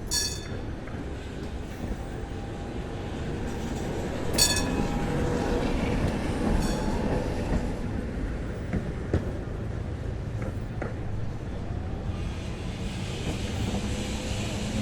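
Vintage tram rolling along the street, wheels rumbling and clattering on the rails. Its bell rings sharply at the start and again about four seconds in.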